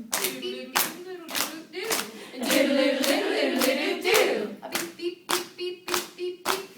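Hands clapping a steady beat, a little under two claps a second, under wordless vocal sounds: a wavering sung voice in the middle, then a single held note from about five seconds in.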